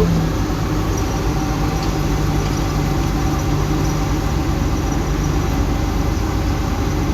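Komatsu D68ESS bulldozer's diesel engine running steadily, a low, even drone.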